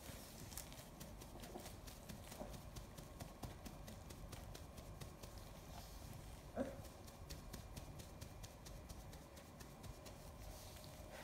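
Faint rustling and light clicking from a lion cub's paws shifting on a padded exam table while it is handled, with one brief louder knock about two-thirds of the way through.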